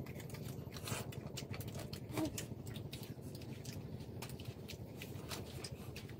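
Small clicks and crackles of boiled shrimp being peeled by hand and chewed, over a steady low background hum. A brief pitched sound comes about two seconds in.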